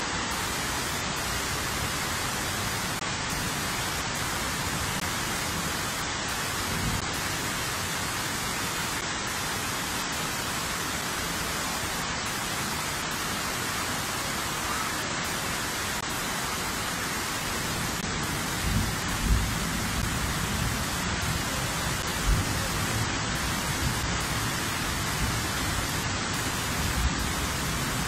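Heavy rain and fast-flowing floodwater making a steady, even hiss, with a few low rumbles and thumps in the second half.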